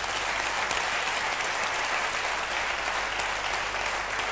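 A large auditorium audience applauding, a dense steady clatter of many hands clapping.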